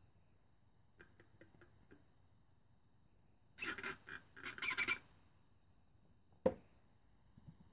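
Cup and straw being handled, squeaking in a quick run of bursts around the middle, with a few light clicks before and a single sharp tap near the end, over a steady high hiss.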